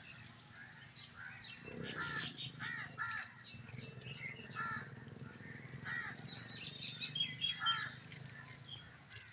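Crows cawing repeatedly in short, irregular calls, with smaller birds chirping.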